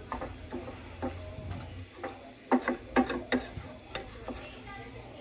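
Wooden spoon stirring and scraping red Mexican rice that is sticking to the bottom of a stainless steel pot, with clicks and knocks of the spoon against the metal. A cluster of three sharp knocks comes a little past the middle. The rice sizzles faintly.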